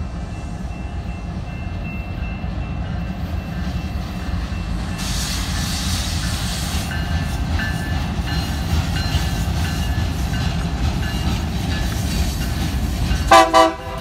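Union Pacific diesel switcher locomotive passing close with its freight cars: the engine's steady low rumble with the rolling of steel wheels, a burst of hiss about five seconds in, and a short horn toot near the end.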